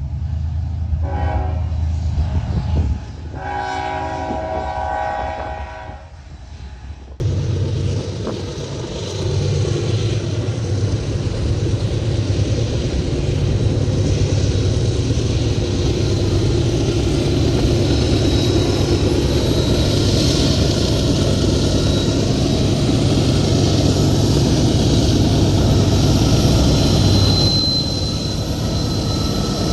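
A diesel locomotive horn sounds twice, a short blast then a longer one, over engine rumble. After a sudden cut, Union Pacific GE diesel-electric freight locomotives pass steadily with their engines running and wheels rolling on the rails.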